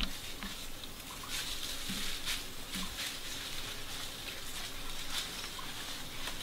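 Dry forest ambience: a steady high-pitched insect drone, with a few faint brief rustles and clicks.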